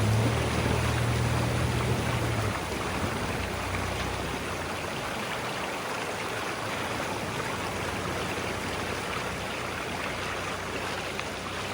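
Mountain creek water rushing steadily. A low hum runs under it for the first couple of seconds, then stops.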